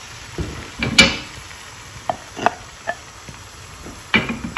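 Chopped tomatoes sizzling in hot oil in a pan, with a handful of sharp knocks and clinks against the pan, the loudest about a second in.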